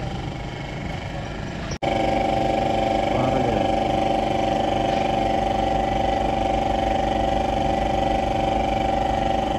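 Toyota Corolla Altis engine idling steadily after its transmission oil change, with a steady hum over it. The sound cuts out for an instant about two seconds in, then carries on louder.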